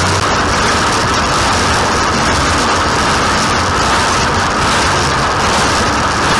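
Farm tractor running steadily under working load, a continuous loud mechanical drone.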